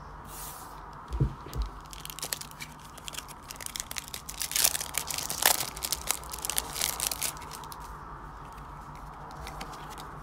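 Plastic trading-card pack wrapper being torn open and crinkled as the cards are pulled out, the crackling busiest in the middle and thinning near the end. A couple of dull knocks about a second in.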